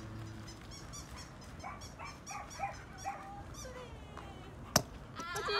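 Puppy giving short whimpers and yips, with a longer whine near the end. A single sharp click stands out about four and a half seconds in.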